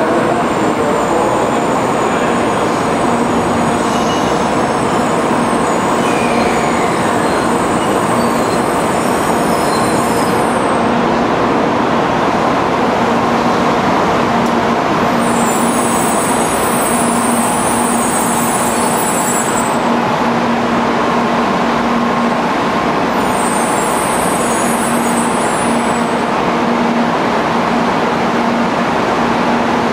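N700-series Shinkansen trains moving along a station platform: a steady, loud rolling and running noise, with a steady low hum through most of it.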